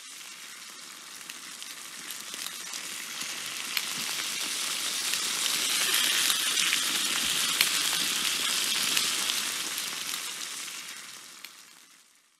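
A crackling, sizzling sound effect with a dense hiss and sharp crackles. It swells steadily for about six seconds, holds, then fades out near the end.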